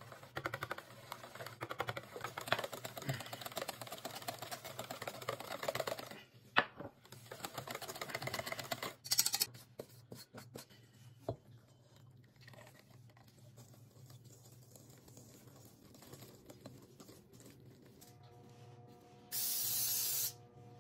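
Mixing sounds of pancake batter being made: a wooden spoon stirring and scraping in a stainless steel mixing bowl, with scattered clicks. Near the end comes a loud steady hiss lasting about a second.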